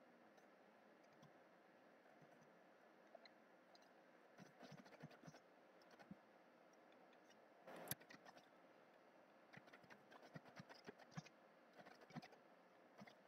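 Faint typing on a computer keyboard: irregular runs of key clicks starting about four seconds in, with one sharper, louder click about eight seconds in.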